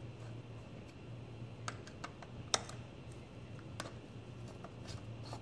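A handful of light, scattered clicks of a Phillips screwdriver working the screws on the top cap of a dirt bike carburetor, the sharpest about two and a half seconds in, over a faint low hum.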